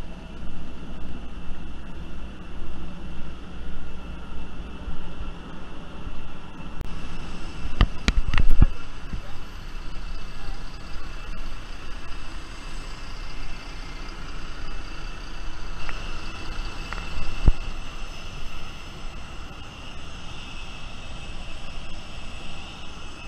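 Airport apron noise: a steady high-pitched whine from jet airliners on the stand, growing stronger in the second half. A low rumble on the microphone fills the first seven seconds, and a few loud knocks come about eight seconds in and again after seventeen seconds.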